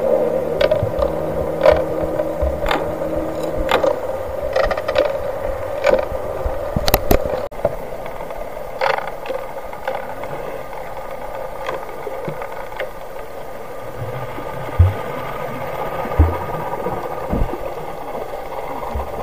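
Underwater sound picked up through an action camera's waterproof housing: a steady muffled hum with sharp clicks and knocks about once a second, and a low drone of several steady tones that stops about four seconds in.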